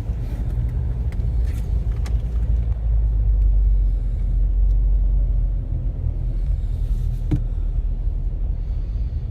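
Low, steady rumble of a 4x4 car driving through deep floodwater, heard from inside the car, loudest in the middle.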